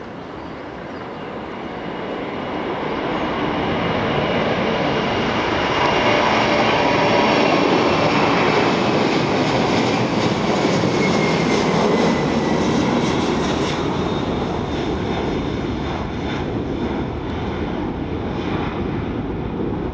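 Boeing 747-400 freighter taking off at full power, its four jet engines swelling as it lifts off and climbs past, then slowly fading. A high engine whine falls in pitch as the aircraft goes by.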